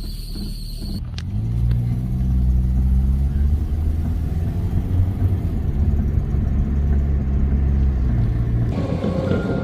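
Toyota 4A-FE four-cylinder engine running steadily, coming in about a second in, its note shifting slightly a couple of times.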